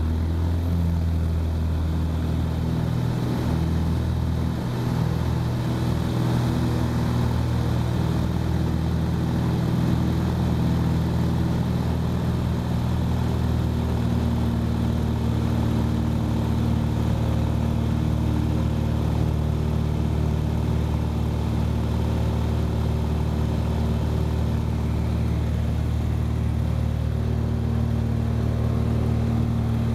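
Single-engine light aircraft's piston engine and propeller droning steadily in flight, heard from inside the cabin. The pitch shifts slightly about halfway through.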